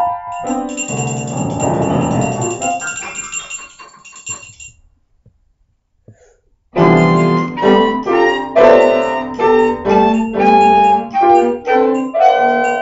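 A small ensemble of piano, cello and woodwind playing a piece of music. A chord rings out and fades over about four seconds, and after a silence of about two seconds the piano comes back in with steady rhythmic notes, joined by the other instruments.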